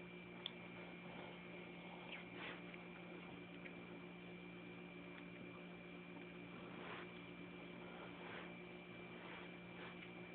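Steady low electrical hum with a thin high whine, under faint, irregular soft wet sounds of a cat chewing and licking pieces of ham.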